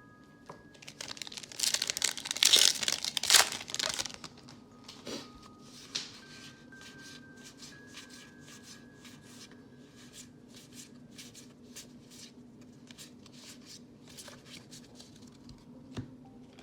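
Foil wrapper of a Magic: The Gathering booster pack crinkling and tearing loudly for about two seconds, then a long run of light ticks from the cards being handled and flicked through.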